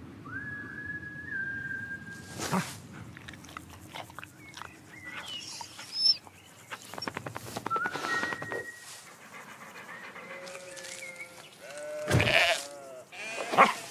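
Animated-cartoon soundtrack of sheep bleating, with several sudden noisy sound effects and a high held tone near the start.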